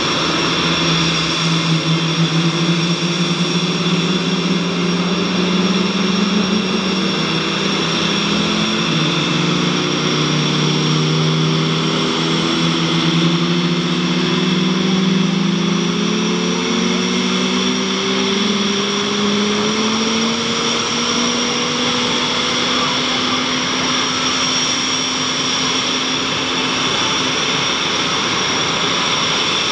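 Several F/A-18 Hornet jet engines (twin General Electric F404 turbofans) starting up on the ramp. A steady high turbine whine sits over lower tones that slowly rise in pitch as the engines spool up.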